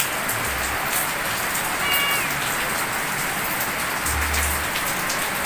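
Heavy rain falling steadily, a continuous hiss with the patter of individual drops. A brief faint high tone comes through about two seconds in.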